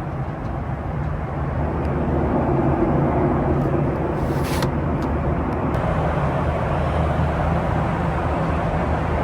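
Steady engine and airflow noise inside the cabin of a Boeing 737-800 with CFM56-7B turbofans, a low hum under a broad rush, with a brief hiss about halfway through.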